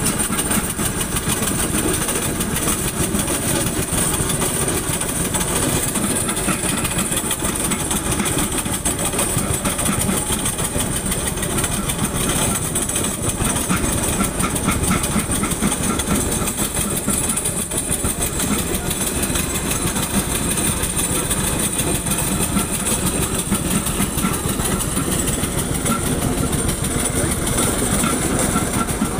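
Road construction machinery running steadily: a continuous heavy engine rumble with a constant high-pitched whine on top.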